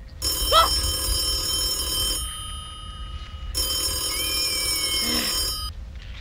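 Rotary telephone bell ringing twice, each ring about two seconds long with a pause between. A short sliding pitched sound comes just as the first ring starts.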